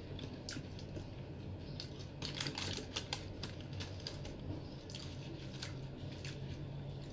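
Quiet, irregular small clicks and crackles of eating by hand: fingers picking and tearing at fried marinated milkfish (daing na bangus).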